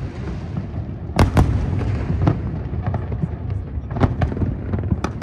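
Aerial fireworks going off: two loud bangs in quick succession a little over a second in, then scattered single bangs over a steady rumble.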